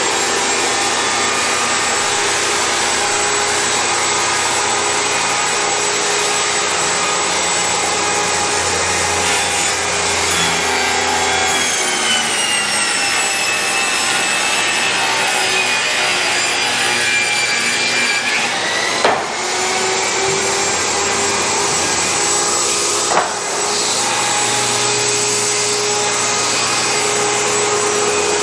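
A steady mechanical whir with a shifting whine over it, running without a break, with two brief jolts about two-thirds of the way through.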